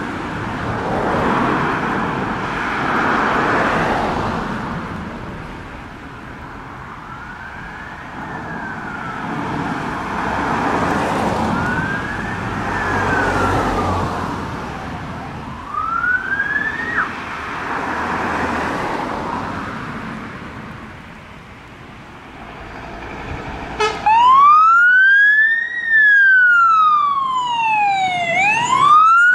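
A fire engine's wail siren, at first faint and distant under the noise of passing cars, then close and loud near the end as the appliance arrives. The tone sweeps up and falls back about every two seconds.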